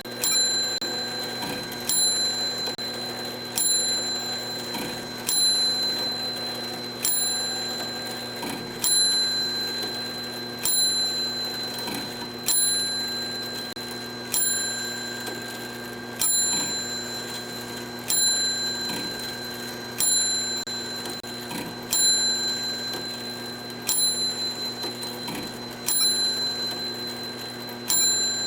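Mechanical clock ticking steadily, about one beat a second. Every other beat is louder and rings on briefly, with a softer tick in between.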